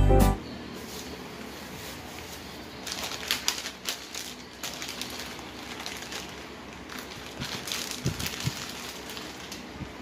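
A short intro jingle cuts off, then plastic food packaging crinkles and rustles in two bursts of handling as packets of dry spaghetti are picked up and moved around on a table.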